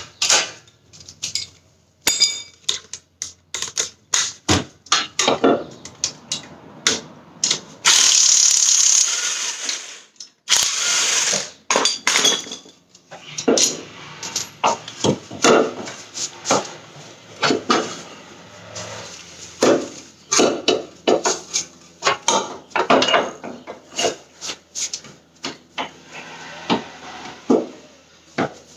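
Socket ratchet clicking in short runs, with clanks and knocks of metal tools, as the stock front suspension is taken apart. Two longer, louder hissing bursts come about 8 and 10 seconds in.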